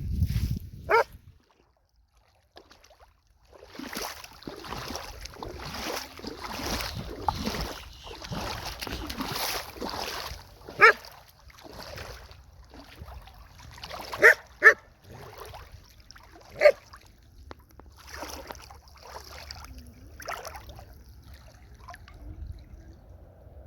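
Footsteps and rustling through brush along a sandy trail, broken by a handful of short, sharp animal calls. Two of the calls come in quick succession about halfway through, and they are the loudest sounds here.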